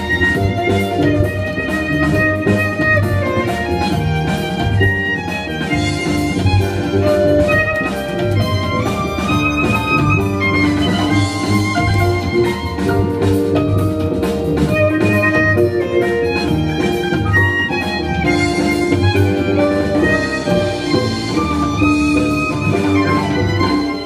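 Live violin and double bass duo playing an instrumental pop piece: the bowed violin carries the melody over the double bass line.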